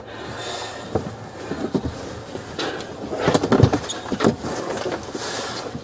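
Scuffling as a person is pushed across the back seat of a police car: fabric rustling and dragging, with scattered knocks against the seat and car interior, busiest about halfway through.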